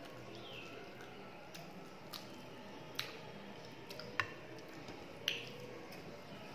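Close-miked eating sounds: wet chewing and squishing of rice and chicken curry eaten by hand, with four sharp wet clicks about a second apart, the loudest near the end.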